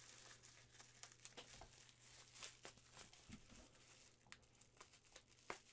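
Faint crinkling and crackling of plastic bubble wrap being handled and pulled off a resin model part: scattered small irregular clicks, with one sharper crackle near the end.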